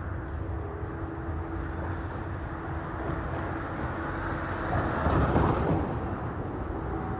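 Outdoor street noise with a steady low rumble of traffic, swelling as a vehicle passes about five seconds in.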